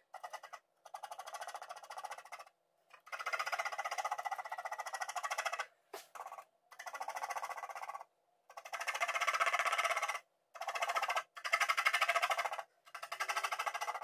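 Graphite pencil scratching across drawing paper in fast back-and-forth hatching strokes, in runs of one to three seconds with short pauses between them as the hand shifts position.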